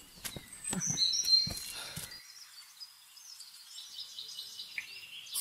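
Small birds chirping and whistling, loudest about a second in. During the first two seconds there are soft thumps of footsteps on stone steps, which stop abruptly about two seconds in.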